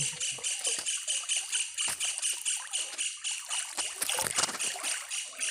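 Pond water splashing and sloshing irregularly as it is disturbed, over a steady, rapidly pulsing insect chorus.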